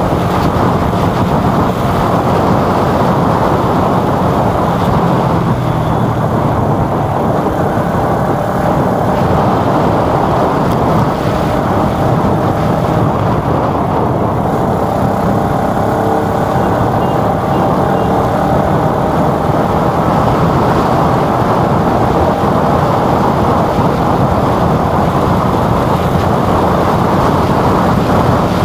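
Steady rush of wind on the microphone mixed with a vehicle's engine running at cruising speed along a road.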